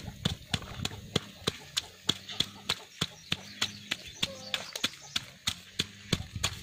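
A stone pestle pounding red chilies and garlic in a coconut-shell bowl: a steady run of knocks, about three or four a second.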